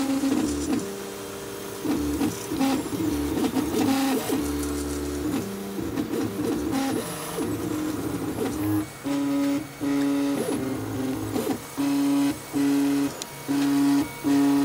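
3D printer's stepper motors whining at changing pitches as the axes move. In the second half they settle into a run of short back-and-forth moves on one pitch, about one and a half a second.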